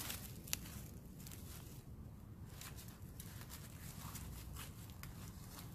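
Faint, irregular crunches of footsteps in dry fallen leaves, over a low steady rumble.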